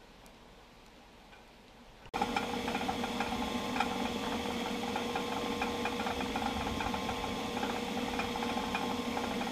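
Faint ticking at first, then about two seconds in a loud, steady machine sound cuts in suddenly: a constant hum with fast rattling, from the pumping equipment draining a flooded manhole shaft.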